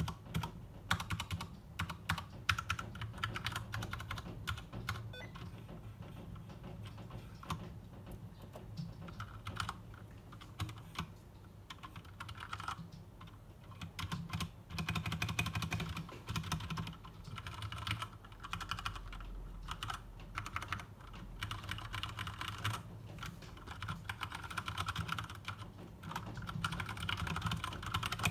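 Typing on an Akko 3068 mechanical keyboard with Cherry MX Brown switches: a steady stream of keystrokes, coming faster in some stretches and sparser in others.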